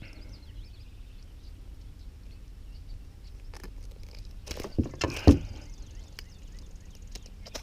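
A landed snakehead thrashing in the hand: a few knocks and thumps, the loudest about five seconds in, over a steady low rumble.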